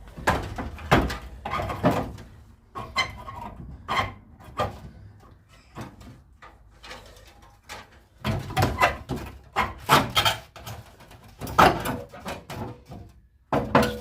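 Irregular knocks and clatters of car body parts being handled and fitted on a Trabant 601's front end, in several bursts with short pauses between.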